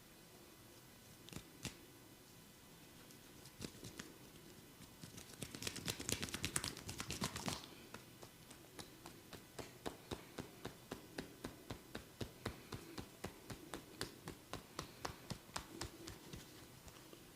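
A barber's fingers tapping and rubbing on a head and ears during a massage. There are a few scattered taps, then a dense flurry of quick taps and rubs in the middle, then steady light taps about three a second.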